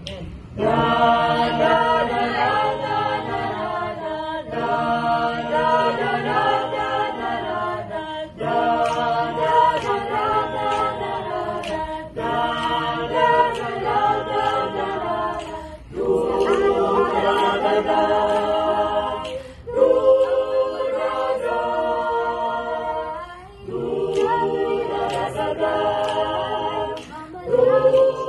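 Small mixed choir of men and women singing a cappella, unaccompanied voices together, in phrases of about four seconds with short breaks between them.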